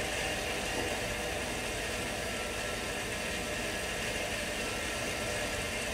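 Grundfos Alpha HWR hot water recirculation pump running, a steady, even hum with water moving through the copper lines.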